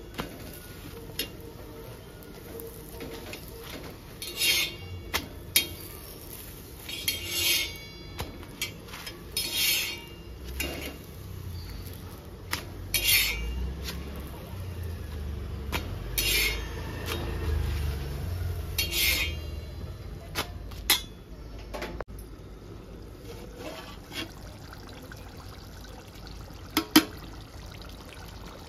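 Metal kitchen utensils clinking and scraping against a pan, in short irregular strokes every couple of seconds.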